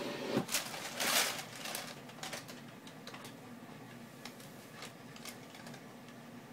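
Thin plastic shopping bag crinkling and rustling as a kitten moves inside it and climbs out, loudest in the first two seconds, then scattered light crackles.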